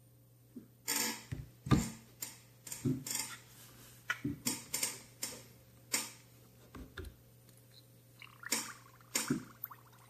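Water splashing and sloshing, with light knocks of a Ronson gas lighter against a plastic tub, as the lighter is dunked and turned under water in a check for gas leaks. It comes as a dozen or so short, irregular splashes and clicks.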